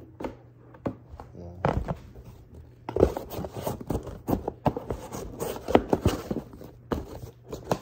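Cardboard box being handled and opened by hand: a run of scrapes, taps and rustles, sparse at first and busier from about three seconds in.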